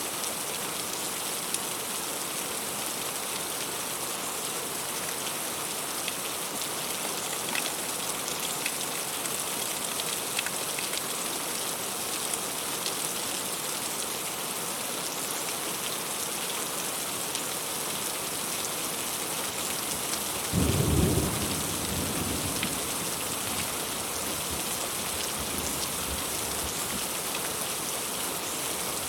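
Heavy rain falling steadily on fruit and leaves, with a few sharper drop ticks. A short, low rumble of thunder comes about two-thirds of the way through.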